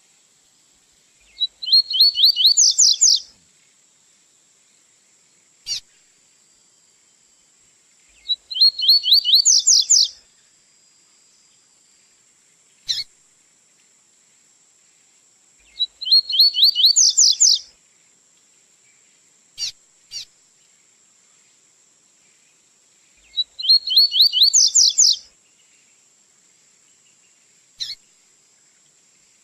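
Double-collared seedeater (coleiro) singing its 'tui-tui' song: four phrases of rapid, high, rising notes, each about two seconds long and about seven seconds apart, with single sharp call notes between phrases. A faint steady high hiss runs underneath.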